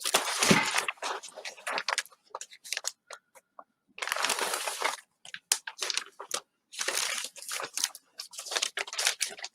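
A large shipping bag being unfolded and handled, rustling and crinkling in three spells with short pauses between.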